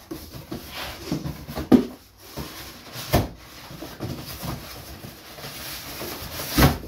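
Hands rummaging in a cardboard shipping box: cardboard and styrofoam packing rubbing and scraping, broken by a few sharp knocks.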